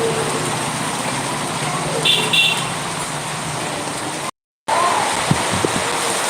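Heavy rain and wind making a steady rushing noise. About two seconds in there are two short high-pitched beeps, and the sound cuts out for a moment a little after four seconds.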